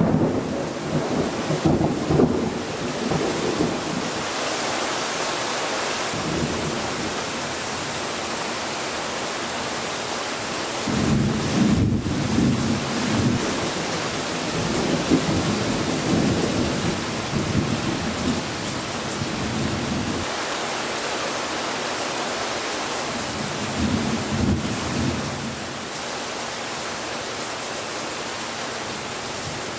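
Heavy rain falling steadily in a thunderstorm, with rolls of thunder rumbling near the start, again for several seconds around the middle, and briefly near the end.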